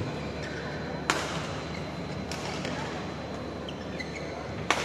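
Badminton rackets hitting a shuttlecock during a rally: a sharp hit about a second in, a fainter one a second later and another sharp hit near the end, over a steady background hum.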